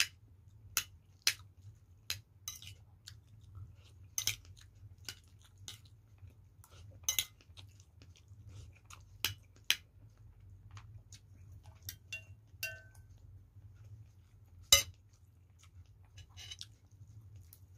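A person eating close to the microphone: chewing and mouth noises with sharp clinks of a spoon against a plate scattered throughout, the loudest clink a little before the end. A faint steady low hum runs underneath.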